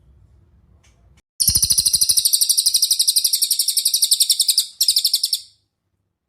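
Cililin songbird singing a loud, fast, high-pitched trill of rapid even notes for about three seconds, then a brief break and a second short trill.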